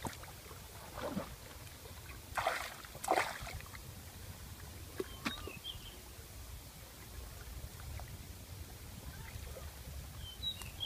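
Low wind rumble on the microphone, with a few brief rustling swishes in the first three seconds and a few faint chirps.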